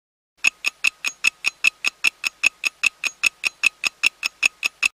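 Countdown timer sound effect: a clock ticking fast and evenly, about five crisp ticks a second, starting about half a second in.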